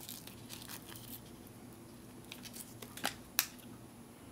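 Faint rustling of a paper drink-mix sachet being torn open and its powder shaken into a mug, with two sharp clicks a little past the middle, about a third of a second apart.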